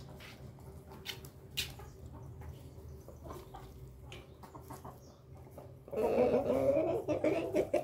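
A rooster crows loudly for about two seconds near the end, a wavering call with a pitch that bends up and down. Before it there are only a few faint clicks.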